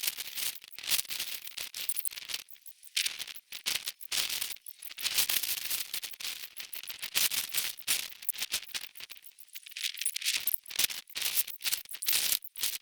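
Rapid footsteps and shoe scuffs of people running beep-test shuttles on a hard surface: a dense run of sharp clicks with a few brief lulls.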